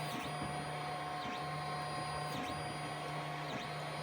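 FDM 3D printer's stepper motors whining as the print head sweeps back and forth at full speed laying down infill. The sound breaks and changes pitch about once a second at each change of direction.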